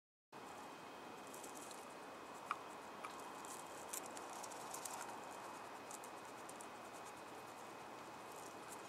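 European hedgehog pattering over loose gravel: faint scattered ticks of small steps and a few sharper clicks between about two and four seconds in, over a steady hiss.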